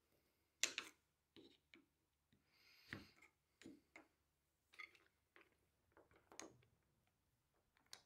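Faint, scattered clicks and light knocks, about ten of them, from a screwdriver working a wooden flipper into a bench-dog hole bored in a wooden workbench top. The loudest is a sharp click about a second in.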